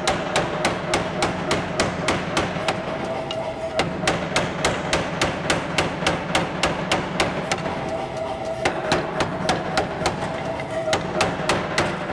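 Mechanical power hammer striking hot H13 tool steel in a steady run of blows, about three a second, drawing out a taper, with a steady hum underneath.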